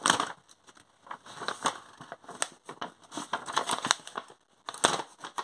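Printed paper sheets rustling and crinkling as hands handle and pull them apart, in irregular short crackles with a sharper click near the end.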